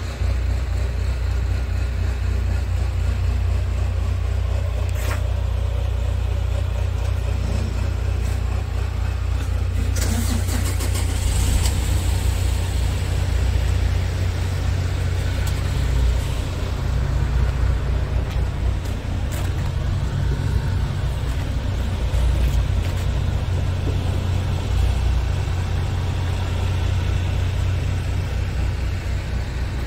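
Scania G500's 13-litre straight-six diesel idling steadily, a deep even rumble, with a couple of sharp clicks about five and ten seconds in.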